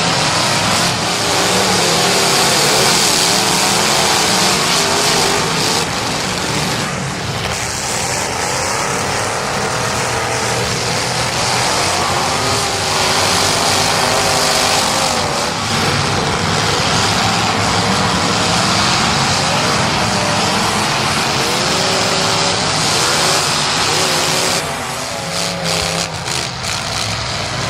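Several demolition derby cars' engines revving and running hard together, their pitches rising and falling over a steady wash of noise.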